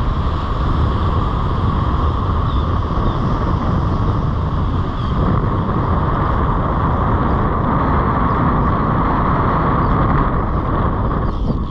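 Steady wind buffeting the microphone over the wash of breaking surf, a loud, constant rumble.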